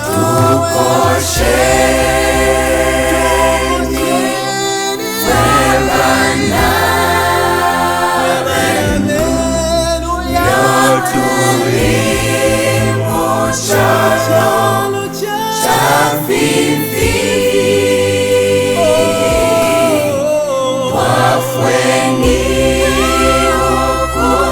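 Choir singing a gospel song in several-part harmony, over a low bass line that comes and goes.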